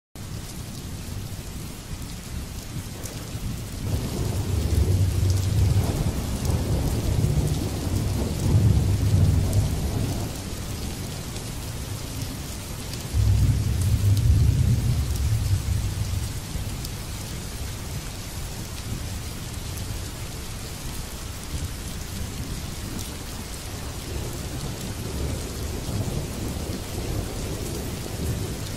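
Steady rain falling on water, with two long rolls of low thunder: the first building up a few seconds in, the second breaking in suddenly about halfway through and fading away.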